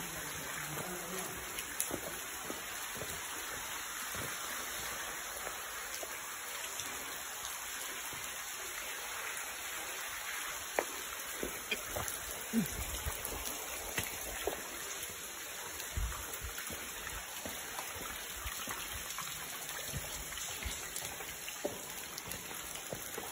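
Steady patter of water drops falling at a rock-cut mine entrance, with scattered sharper individual drips. A few low thumps come through in the middle and later part.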